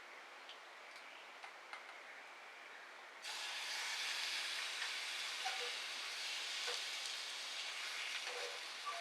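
Small wood-burning stove fire ticking faintly, then about three seconds in a loud, steady hiss starts suddenly and carries on, dotted with small pops and sizzles.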